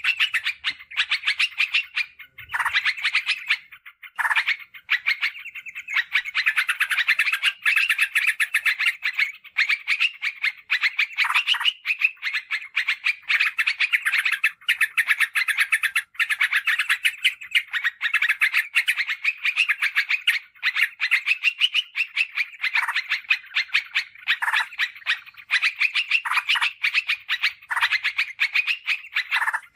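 Yellow-vented bulbul (trucukan) song: a fast, dense run of short chirping notes with hardly a pause, thinning out briefly about two to four seconds in.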